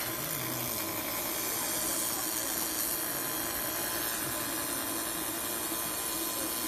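100 W pulsed laser rust cleaner working on a rusty metal block, a steady hiss with a faint steady whine under it.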